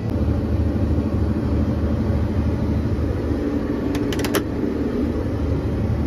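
Tractor engine running steadily, heard from inside the cab, with a quick cluster of clicks about four seconds in.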